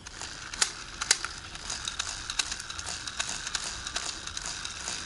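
Wood fire crackling in a small stainless wood-burning camp stove: irregular sharp pops over a steady hiss, with two louder pops about half a second and a second in.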